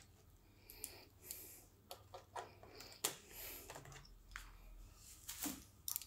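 Faint plastic clicks and scraping as the battery release latch of a Sony VAIO E Series laptop is slid and the battery is pulled out of its bay. The sharpest click comes about three seconds in.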